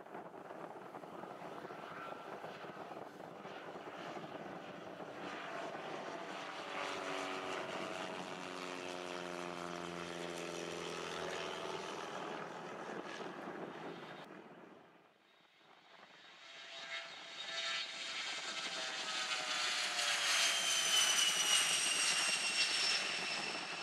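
A light single-engine propeller airplane flying overhead, its engine drone dropping in pitch as it passes. After a brief lull, a twin-engine regional jet takes off, its turbines running with a high whine over a rumble and growing loudest near the end.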